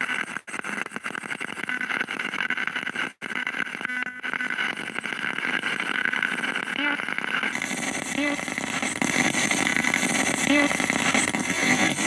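Handheld spirit box sweeping through radio stations: a steady, choppy hiss of static that cuts out for an instant twice in the first few seconds, with a few short blips of sound further on. It turns brighter and hissier about two-thirds of the way through.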